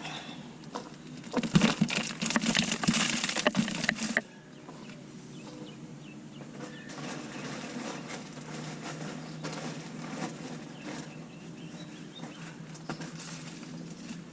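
Bagged mulch being handled and spread: about three seconds of loud crunchy rustling and crackling that stops abruptly, then quieter scratching and rustling.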